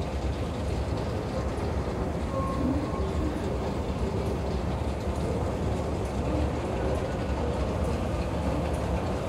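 Steady low rumble of a long metro station escalator running under a rider, with no rise or fall.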